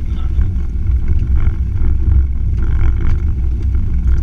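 Off-road 4x4 crawling slowly over a rocky track, its engine and drivetrain making a steady, heavy low rumble, with occasional small knocks from the body and stones.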